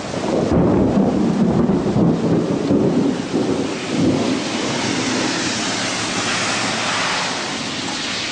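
Strong storm wind, with a heavy low rumble of gusts for the first few seconds, then settling into a steady rushing hiss of wind and rain.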